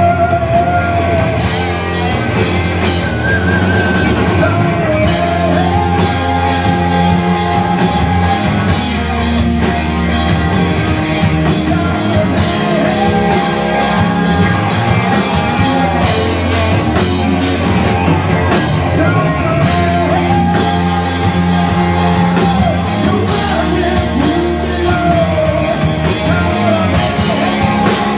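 A rock band playing live: electric guitars, bass guitar and drum kit, with a man singing at the microphone.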